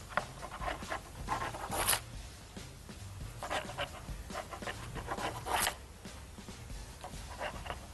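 A kitchen knife is cut along the edge of a Swiss roll sponge, trimming the crust off and scraping over the baking paper underneath. It comes as a few short, scraping strokes.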